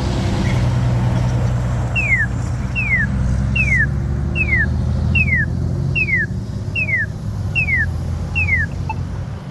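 Passing road traffic, with nine identical falling chirps from an accessible pedestrian crossing signal repeating evenly, about one every 0.8 s, from about two seconds in until near the end.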